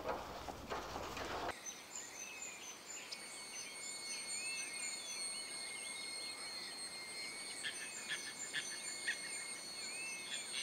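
Insects trilling steadily on several high pitches, with repeated short chirps and a few bird calls. A brief rustling noise before it stops abruptly about one and a half seconds in.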